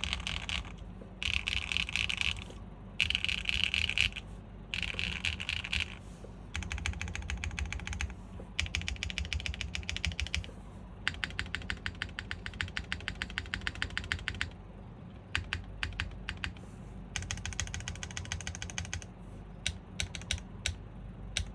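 Typing on a GAF 910 custom mechanical keyboard with Strawberry Wine V2 switches, PBTfans keycaps and a top-mounted polypropylene plate. It opens with roughly one-second bursts of fast, dense keystrokes, then quick even runs of separate key presses, and ends on scattered single key strikes with one short burst.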